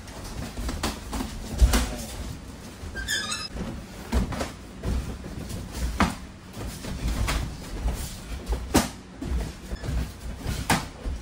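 Kickboxing sparring: gloved punches, knees and shin-guarded kicks landing on gloves and guards as sharp slaps at irregular intervals, over low thuds of footwork on the ring canvas. A brief squeak comes about three seconds in.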